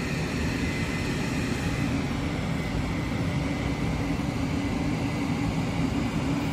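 Ionity high-power EV charger's cooling fans running steadily under load while it delivers about 70 kW: a constant whir with a low hum and a faint high whine over the first couple of seconds.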